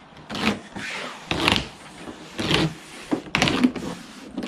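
A screwdriver levering at the jet ski's hull trim, with about five irregular scraping, creaking strokes as the piece is prised up.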